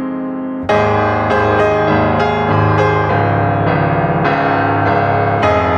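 Background piano music: a held chord dying away, then a fresh chord struck under a second in and further notes and chords following at an easy pace.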